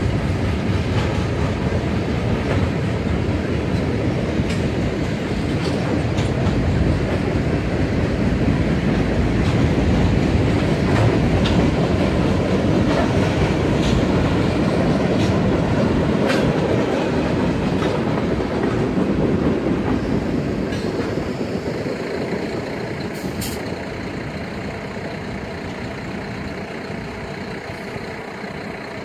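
Freight train of tank cars rolling past at a grade crossing: a steady rumble with wheel clatter. The sound fades over the last several seconds as the end of the train goes by.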